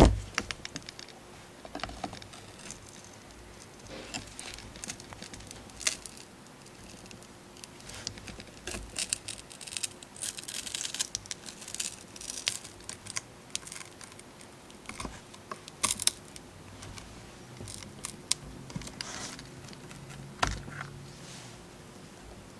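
Small clicks, taps and scraping rasps of the front glass of a Lenovo Smart Display being pried away from the housing, with a few sharper knocks.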